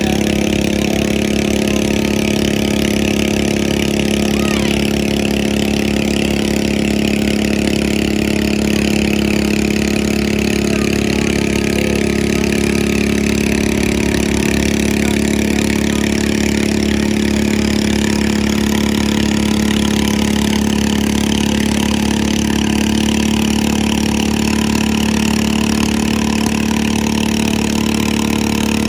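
Pulling lawn mower engine running loud and steady at an even pitch.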